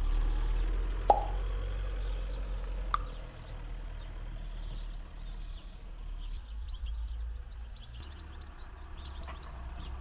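Low steady rumble of a car with a sharp click about a second in and a smaller one near three seconds, and faint bird chirps in the second half.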